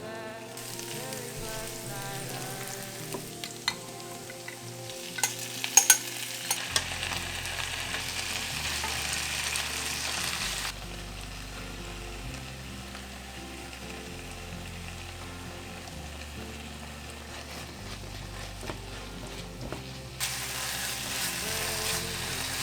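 Food sizzling in a hot frying pan as it is stirred, with a few sharp clicks of a utensil against the pan about five to six seconds in. The sizzle drops away about halfway through and comes back loud near the end.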